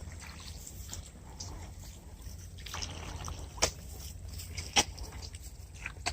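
Water trickling and lightly splashing, with three sharp clicks or taps in the second half, the middle one the loudest, over a steady low rumble.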